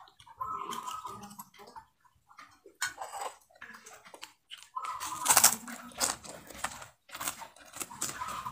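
Metal spoon scraping and clinking on a ceramic plate while scooping rice, in short irregular strokes, the loudest about five seconds in, with chewing between them.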